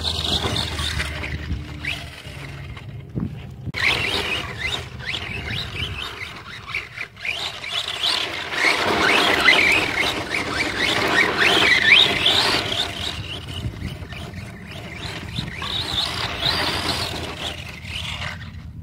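Brushless electric motor of a DHK Crosse RC monster truck whining up and down in pitch as it is throttled on and off, with the tyres spinning and scrabbling over loose dirt.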